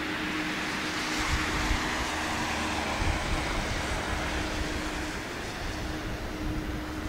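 Boeing 737-800's CFM56-7B jet engines running at low power as the airliner touches down: a steady jet rush that slowly fades.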